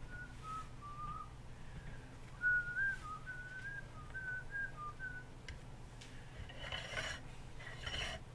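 A person whistling a tune idly, short held notes stepping up and down in pitch. A brief rustling scrape comes near the end.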